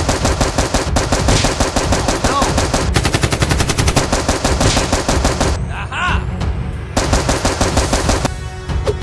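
Movie-style automatic gunfire sound effect, rapid continuous shots laid over blasters that are shown with muzzle flashes. It stops a little over five seconds in, resumes about a second and a half later, and breaks off just past eight seconds.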